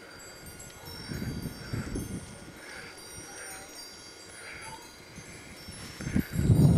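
Outdoor ambience: scattered high tinkling tones and a soft chirp that repeats about once a second, with bursts of low rumble, the loudest near the end.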